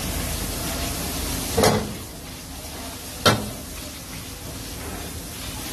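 Boneless chicken pieces frying in oil in a wok, sizzling steadily as a spatula stirs them, with two sharp knocks of the spatula against the pan about a second and a half apart.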